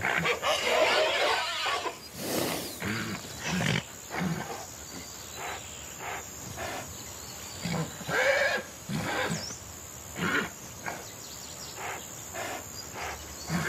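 A sick pony lying on the ground groans and breathes hard in irregular bursts every second or two, some of them pitched like moans. These are the sounds of a horse in distress from an illness that is going badly.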